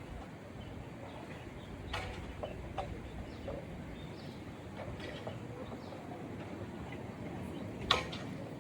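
Outdoor ambience: a steady low noise with scattered short, high chirps, like small birds, and two sharp knocks, one about two seconds in and a louder one near the end.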